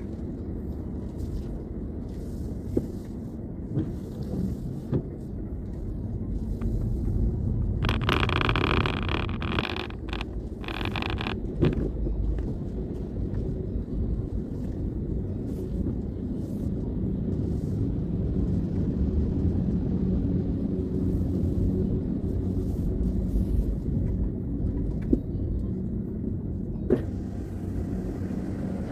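Car engine and road noise heard from inside the cabin while driving: a steady low rumble. About a third of the way in there is a brief higher-pitched sound, in two or three short pieces.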